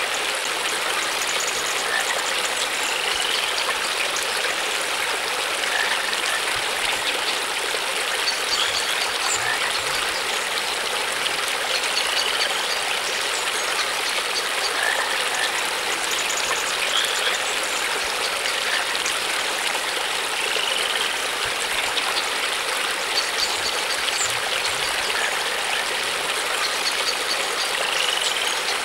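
Steady rushing of running water, as from a stream, with faint short high chirps every few seconds.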